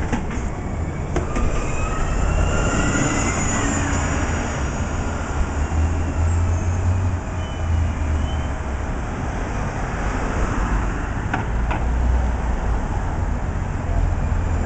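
Orion VII NG transit bus running as it pulls away through city traffic, a deep engine rumble with a whine that rises and falls a couple of seconds in. Another bus passes close near the end.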